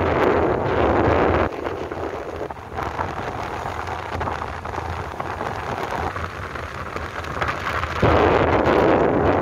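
Wind buffeting the microphone of a moving motorbike, with road noise underneath. The rush drops abruptly about a second and a half in and comes back just as suddenly near the end.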